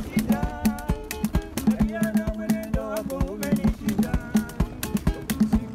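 Background music: plucked acoustic guitar over a steady percussive beat.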